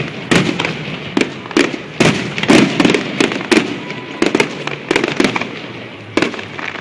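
Aerial fireworks display: a rapid run of shell bursts, bangs several times a second with crackle between them, easing off near the end.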